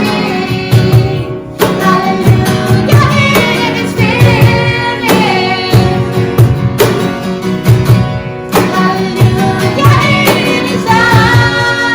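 Worship band music: acoustic guitar and a steady low beat, with a woman singing over it.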